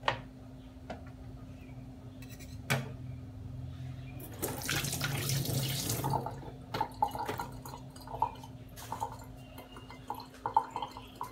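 Kitchen tap running for a second or two as a knife is rinsed at a stainless steel sink, with sharp clicks before it and a string of light knocks and clinks of utensils against the sink after it. A steady low hum sits underneath.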